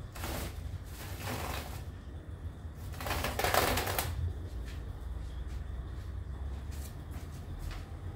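Woven plastic flour sacks rustling as they are slit open and handled, in a few short bursts, the loudest about three seconds in, with a few small clicks over a low hum.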